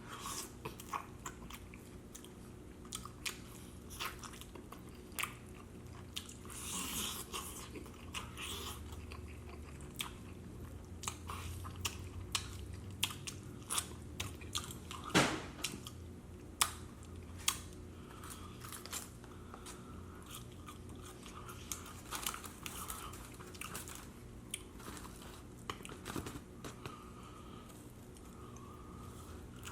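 Close-up mukbang eating of chicken wings: wet smacking, chewing and crunching bites, a string of sharp irregular mouth clicks with one louder smack about halfway through.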